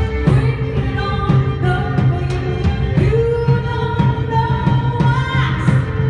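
Live indie band playing: a woman singing over keyboard and a steady drum beat, with one long held note in the second half.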